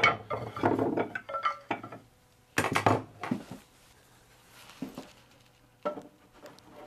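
Tools and parts being moved and set down on a workbench to clear space: metal clinking and clatter, with a loud cluster of knocks about two and a half seconds in, then a few lighter knocks.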